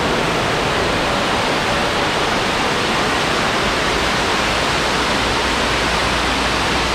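A waterfall's water rushing and splashing in a steady, unbroken hiss.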